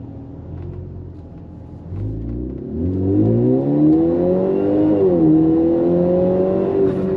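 Ford Fusion AWD's engine accelerating hard under full throttle, rising in pitch from about two seconds in, dropping briefly at an upshift near five seconds, then climbing again. This is a launch test of the repaired all-wheel-drive coupling (ITCC), and the car pulls without slipping.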